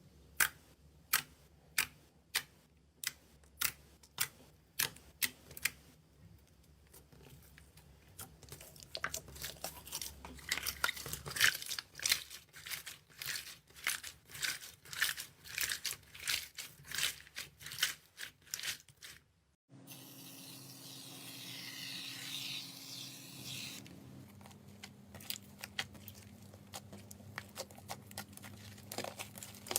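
Slime being squeezed and pressed by hand, giving sharp sticky pops and crackles: first a slow run of single clicks, then denser crackling. About two-thirds of the way through there is a cut to a steady crinkly hiss, and after it the crackling comes back.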